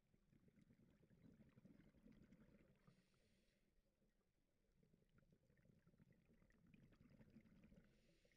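Near silence: a faint, muffled underwater rumble picked up through a camera's waterproof housing, with scattered faint crackles and a brief faint hiss about three seconds in.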